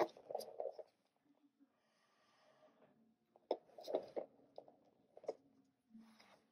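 Breaths and puffs of air blown through a drinking straw to spread wet acrylic pour paint, with a few short soft clicks between the breaths.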